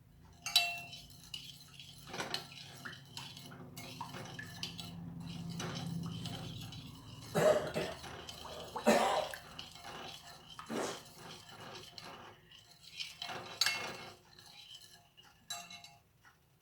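Kitchen clatter: a saucepan and metal utensils knocking and clinking, a dozen or so sharp knocks scattered irregularly, with a low hum swelling and fading in the middle.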